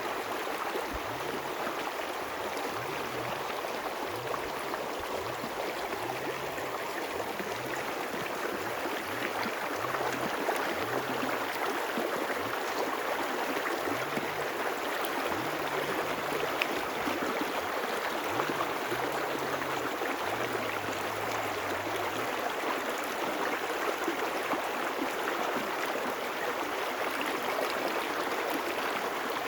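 River water flowing steadily, a little louder from about ten seconds in.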